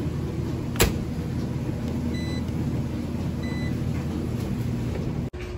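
Commercial Speed Queen dryer being restarted: its door shuts with a sharp bang about a second in, then the control panel gives two short beeps as the time is set, over the steady hum of running laundry machines.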